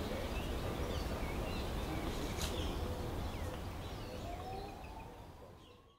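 Garden ambience with small birds chirping now and then over a low rumble, fading out over the last couple of seconds.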